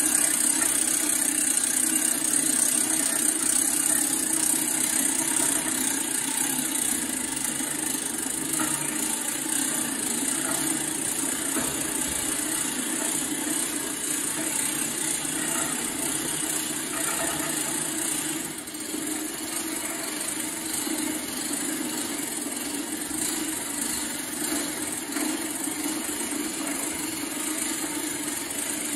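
A motor running steadily, a constant hum with a high whine over it, dipping briefly about 18 seconds in.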